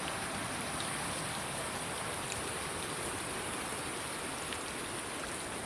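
Steady rain: an even hiss with a few faint ticks of single drops.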